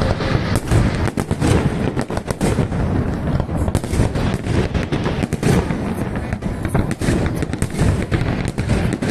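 Aerial fireworks display: shells bursting in rapid succession, a dense run of bangs and crackles over a low rumble, several per second with no pause.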